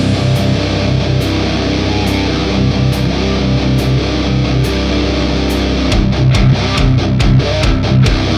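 High-gain distorted electric guitar: an ESP LTD Phoenix Arctic Metal with an active EMG 81 pickup, played through an Orange Dark Terror tube amp head, chugging a low metal riff. A programmed drum track plays along and gets busier about six seconds in.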